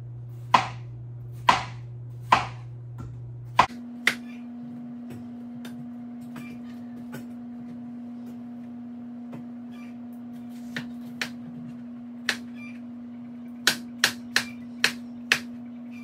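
Knife chopping watermelon on a cutting board. A few sharp chops come in the first four seconds, then a few light, scattered taps, then a quick run of five or six chops near the end.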